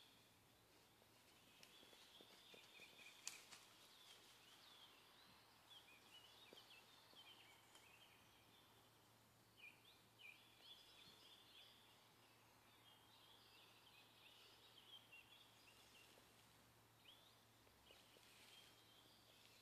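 Faint songbird chirps and trills, many short overlapping calls, over quiet woodland background, with one sharp click about three seconds in.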